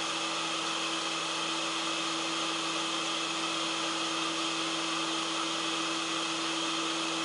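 Blower fan of a SAIKE 909D hot-air rework gun running steadily, a continuous airy rush with a low hum. It is the cool-down cycle with the handpiece back in its cradle: the fan keeps blowing until the heater drops to a set temperature and the unit shuts itself off.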